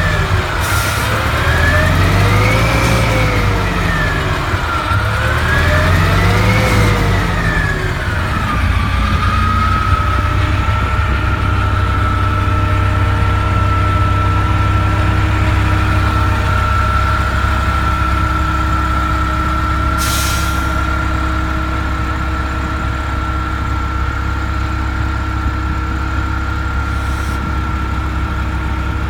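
NABI transit bus engine revving up and down twice, then settling into a steady idle with a constant high whine. About 20 seconds in comes a sharp burst of hissing air, the bus's air-brake 'sneeze', and a shorter one near the end.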